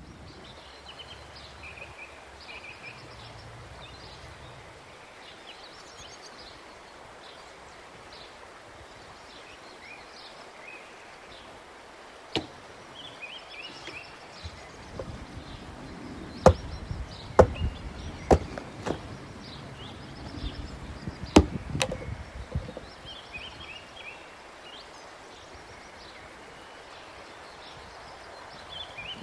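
An axe splitting firewood logs into kindling: a series of about seven sharp chops through the middle stretch, several of them about a second apart.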